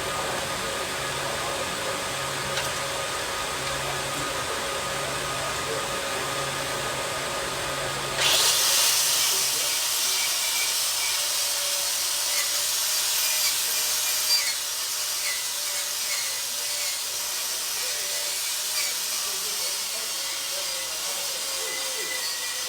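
Stick (shielded metal arc) welding arc struck about eight seconds in with a sudden hiss, then running on as a steady crackling sizzle, loudest for the first several seconds. Before the arc, a steady low hum that pulses on and off.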